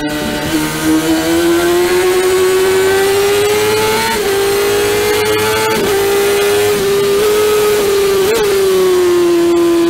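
Honda CBR600F inline-four racing engine at high revs, heard from the bike. Its note climbs slowly as it accelerates up through the gears, with brief dips at the upshifts. About eight and a half seconds in the throttle eases and the note falls. Wind rush runs under it.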